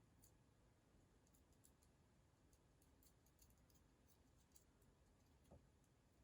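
Near silence, with faint scattered light clicks and one soft knock about five and a half seconds in, as small metal construction-set parts are handled.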